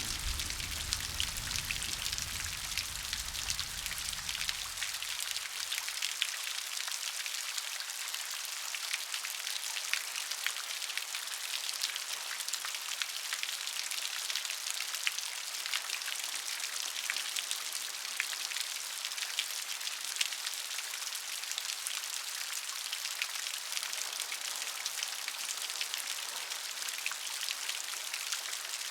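Steady rain with a dense patter of individual drops hitting a surface. A low rumble underneath fades out about five seconds in.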